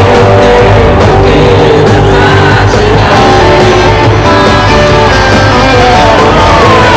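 Live rock band playing loudly, with singing over the guitars and drums.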